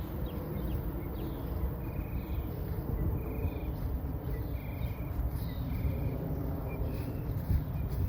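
Outdoor wildlife calling: a short, even, high note repeated about once a second, with a few brief chirps, over a steady low rumble.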